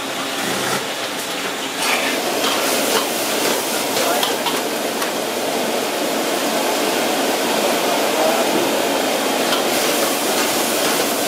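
Stir-frying in a wok over a high gas flame: a steady, loud sizzle, with a metal ladle clacking and scraping against the wok. It starts about two seconds in.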